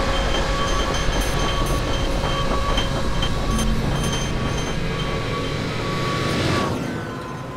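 A train passing: a steady heavy rumble with thin, high metallic squeals from the wheels on the rails. It drops away sharply about seven seconds in.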